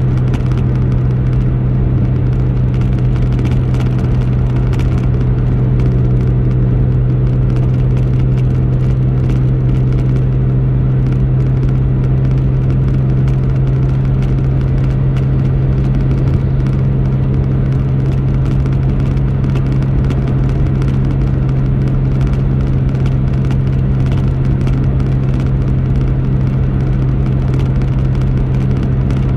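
Car driving at highway speed: a steady low engine drone with road noise, even throughout.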